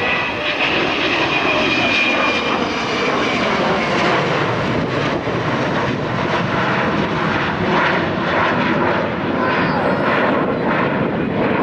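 Avro Vulcan bomber's four Rolls-Royce Olympus turbojets running loud and steady on a fly-by, with a faint high whistling tone over the engine noise in the first two seconds or so.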